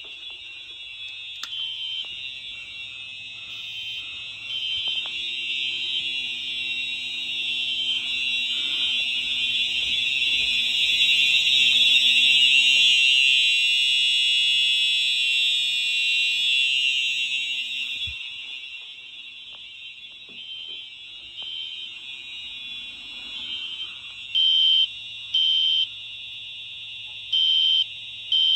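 Simplex TrueAlert fire alarm horn sounding a continuous high-pitched tone, growing louder towards the middle and then easing off. About 24 seconds in, a System Sensor SpectrAlert Classic horn starts sounding code 3: short half-second blasts in groups of three with a pause between groups.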